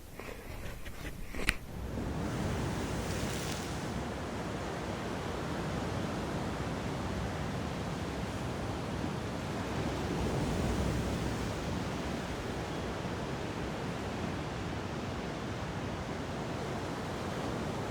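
A single click, then a steady rushing noise with no pitch to it.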